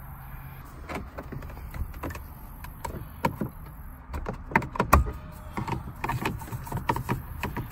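Plastic dash trim being pried loose with a flathead screwdriver: scattered clicks and snaps of the Ford F-150's side trim cover and its clips, busier in the second half with the sharpest snaps about five seconds in.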